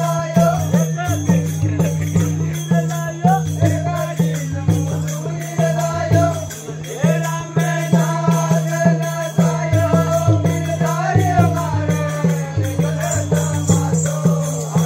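Live Gavari folk music: a drum beaten in a fast, steady rhythm while a voice sings over it.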